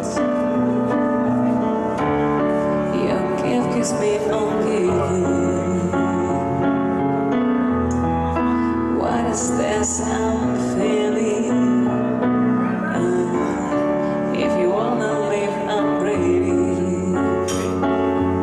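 Live piano and female vocal duo: a woman sings a slow melody with vibrato over held grand-piano chords.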